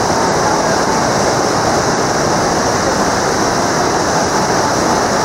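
Whitewater rapids rushing through an artificial canoe slalom channel: a loud, steady roar of churning water.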